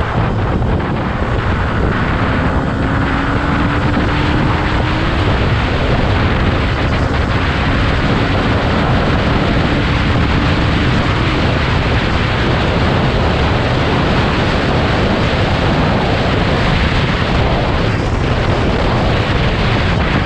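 Heavy wind noise buffeting the microphone on a moving motorcycle, with a faint engine drone underneath that rises slowly in pitch from about two seconds in and fades out near the middle.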